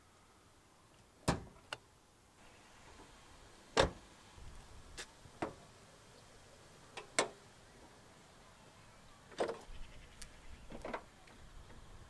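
Car body hardware of a Mitsubishi Lancer: a string of sharp clicks and clunks as the hood release is pulled and the bonnet is unlatched, lifted and propped open on its stay rod. The loudest clunk comes about four seconds in.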